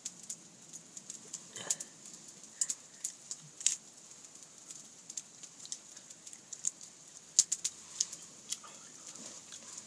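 Small wood fire crackling with irregular sharp pops, alongside a person chewing roasted rabbit meat.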